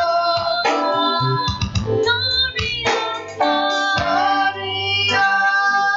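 Worship song: a woman's singing voice over instruments and a deep sustained bass, phrase after phrase.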